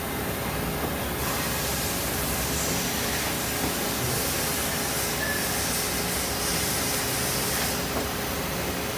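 Miyano BND-51S2 CNC lathe running a cycle: a steady machine hum with a hiss that comes in about a second in and stops about a second before the end.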